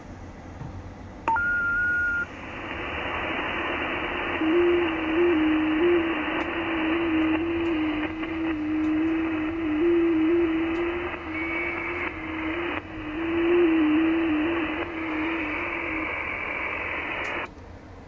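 Shortwave receiver audio on the 30 m band: hiss of band noise with an FT8 digital signal in it, a low tone hopping between close pitches for about twelve seconds. It is the T30L station's transmission, decoded as its RR73 confirmation to HL2WA. A short steady beep about a second in as the hiss comes up, and the hiss cuts off near the end.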